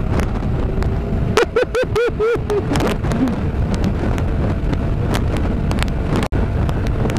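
Snowmobile running at high speed, its engine drone mixed with heavy wind buffeting the microphone and frequent knocks from the sled slamming over a rough, bumpy frozen lake. About a second and a half in, a short warbling sound rises and falls four or five times over the din.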